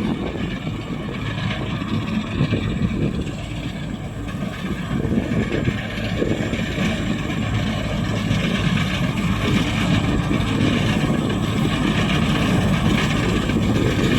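Rice combine harvester running steadily under load: a continuous engine hum with the dense mechanical noise of the machine working.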